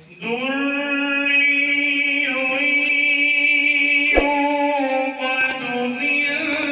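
A man's voice reciting the Quran in the melodic tajweed style into a handheld microphone, drawing out one long held note that shifts slightly in pitch a couple of times. A sharp click about four seconds in.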